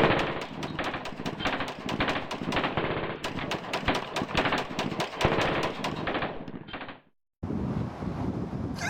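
Rapid automatic gunfire, long strings of shots several a second, fading out about seven seconds in. After a brief silence there is steady outdoor background noise.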